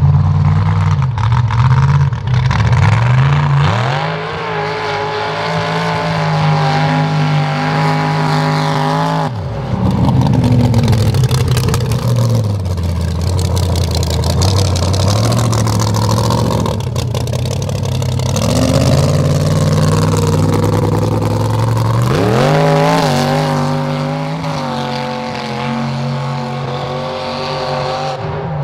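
Mega truck's engine revving hard in a mud bog, with tyres churning and throwing mud. The revs climb about three seconds in, fall away abruptly about nine seconds in, and climb again past twenty seconds.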